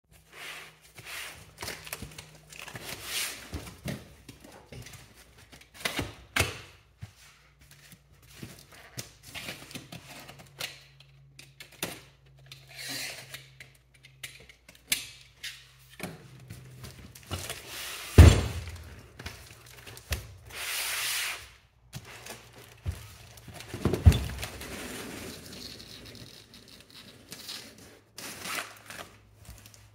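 A cardboard box being handled and cut open with a knife: scraping, rubbing and clicking of the blade and cardboard. Two loud thunks of the heavy box against the wooden workbench come a little past the middle, about six seconds apart, with a short sliding rasp of cardboard between them.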